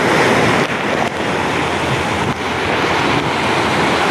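Surf breaking and washing over shoreline rocks in a steady rush, with wind buffeting the microphone.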